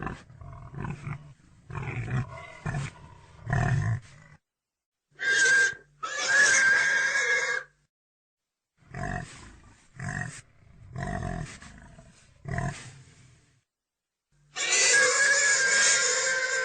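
Pig grunting in a run of short bursts, broken by two long, loud squeals, one about six seconds in and one near the end.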